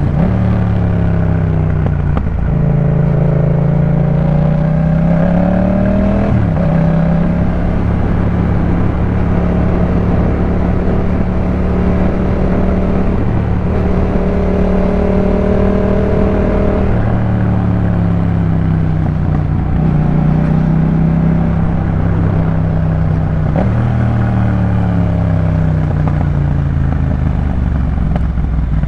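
2018 Yamaha MT-07's 689 cc parallel-twin engine through a Jeskap K4 full exhaust system while riding. It pulls up and shifts up twice in the first six seconds, holds a steady pitch for about ten seconds, then eases off. It pulls again with another upshift and falls back near the end.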